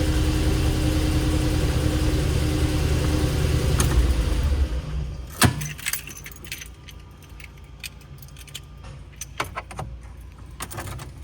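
VW Polo 9N engine running steadily, then switched off about four and a half seconds in. A sharp click follows, then light clicks and jangling of the keys at the ignition.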